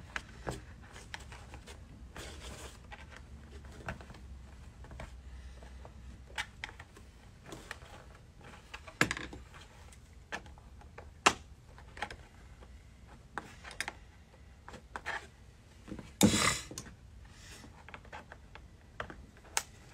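Scattered small clicks and taps of pliers and a small screwdriver working the plastic retaining clips on a car's rear package tray, squeezed one by one to fold and break them off, at uneven intervals, with one louder brief rustle or scrape about sixteen seconds in.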